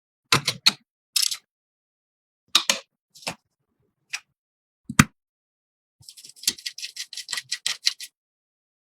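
Clicks and taps of computer parts being handled and fitted together, with a sharp knock about five seconds in, then a quick run of small clicks lasting about two seconds near the end.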